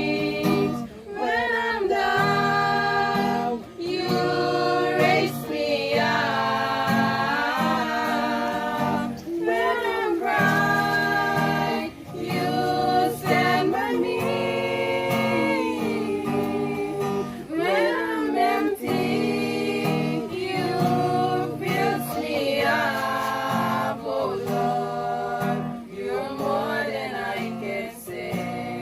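A worship song: voices singing with instrumental accompaniment.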